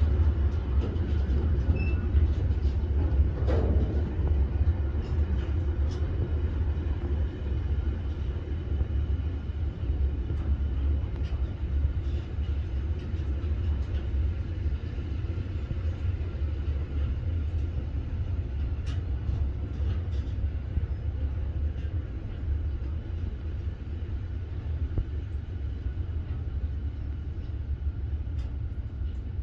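Long freight train of covered hopper wagons rolling past at close range: a steady low rumble with scattered clicks and knocks, growing slowly quieter.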